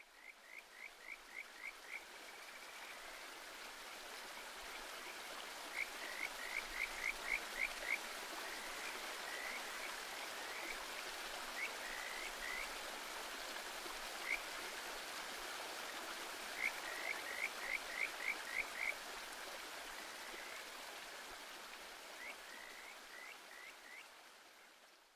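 Mountain-stream ambience recording: a steady rush of flowing water with frogs calling over it in runs of quick, high chirps, several runs spread through, fading out near the end.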